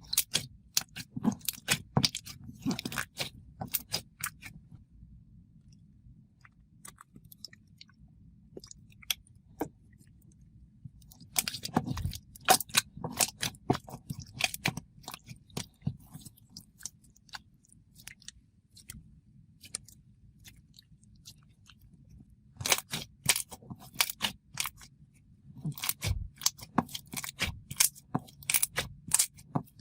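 Thick school-glue slime being poked and squished by hand, making clusters of sticky pops and crackly bubble pops in three bursts with quieter pauses between.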